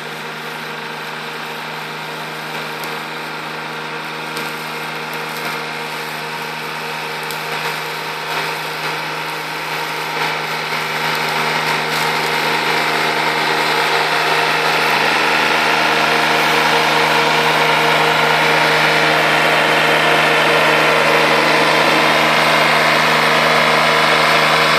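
McConnell Robocut remote-controlled tracked slope mower running steadily while mowing, its engine and cutting head growing louder about halfway through as it comes closer.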